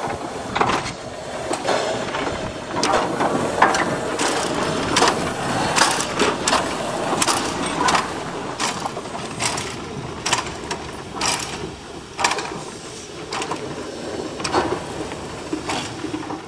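Irregular mechanical clanking and knocking, sharp knocks coming about once or twice a second over a steady rushing noise.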